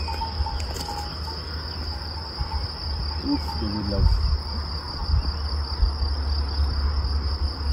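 Insects trilling: a steady high-pitched buzz held on one pitch, over a low, uneven rumble.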